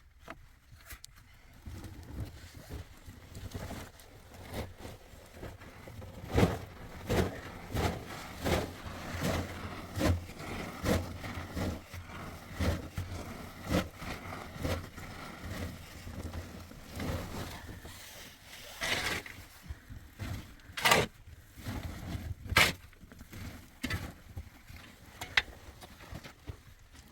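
A steady run of sharp knocks or crunches, about one every three quarters of a second, followed by a few louder separate knocks near the end.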